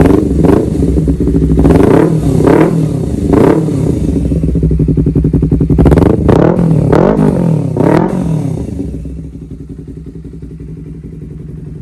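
Honda CBR250RR parallel-twin engine breathing through an R9 H2SS aftermarket exhaust, revved in a string of quick throttle blips that rise and fall in pitch. About nine seconds in, it settles back to a steady idle.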